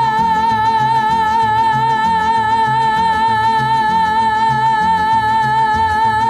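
Mariachi band playing: one long high note held with vibrato, over a steady strummed rhythm from the low strings. The held note breaks off near the end.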